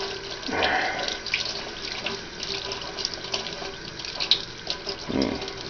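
Kitchen faucet running into a stainless steel sink, with splashing as a hand is rinsed under the stream.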